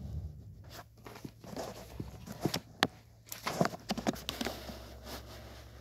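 Handling noises as a plush toy is moved around in a cardboard box of papers: light rustling, with a cluster of sharp taps and knocks from about two and a half to four and a half seconds in.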